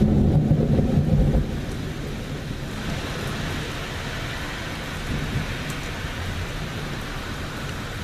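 Thunder rumbling and dying away about a second and a half in, leaving steady rain whose hiss grows a little louder about three seconds in.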